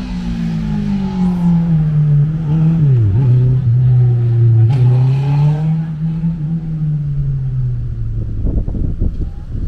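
A motor vehicle's engine running loud, its pitch sliding slowly down with two brief dips in the middle, then fading near the end. Low rumbling thumps follow.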